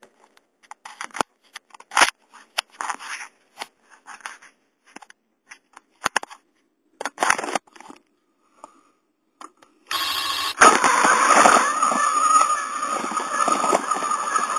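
Scattered plastic clicks and knocks from a Duplo toy train and its track, then about ten seconds in a steady whirring with a high whine starts and keeps going.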